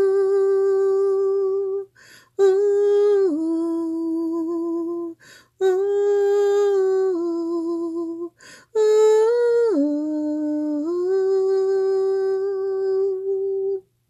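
A woman humming a slow, wordless lullaby in long held notes. She pauses for a quick breath about every three seconds.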